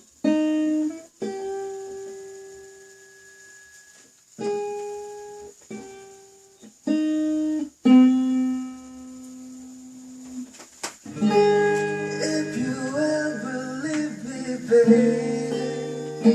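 Acoustic guitar intro: single notes and chords plucked and left to ring out, with short pauses between them, then fuller, continuous playing from about two-thirds of the way through.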